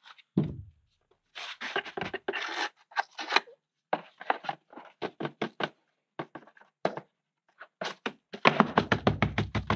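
Wet concrete being scooped and scraped out of a mixing container and poured into a plastic mold: irregular short scrapes and scoops with gaps between them. Near the end a fast, even run of taps starts, about six a second.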